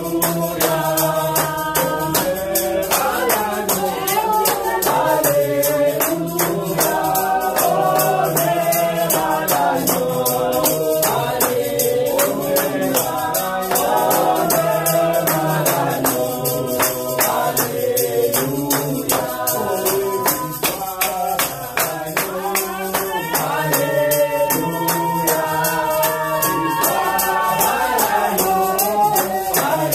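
A congregation sings a worship song together, led by a woman's voice. A tambourine is shaken in a steady rhythm under the singing.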